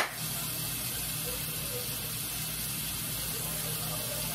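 Kitchen faucet left running, an even, steady hiss of water, with a sharp click right at the start.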